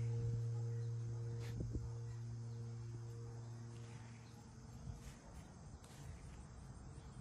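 The last chord of soft background music dies away over about four seconds. After it comes faint outdoor ambience: a steady high insect buzz with a few soft ticks.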